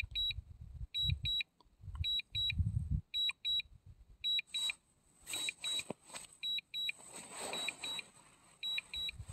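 DJI Mini 2 remote controller sounding its return-to-home alert: short high double beeps, about one pair a second, warning that the drone is flying itself home on low battery. Wind buffets the microphone with low rumbles between the beeps.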